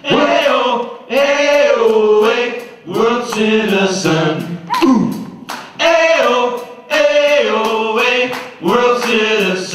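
Several voices singing together in harmony in sung phrases, over light percussion ticking in a steady beat.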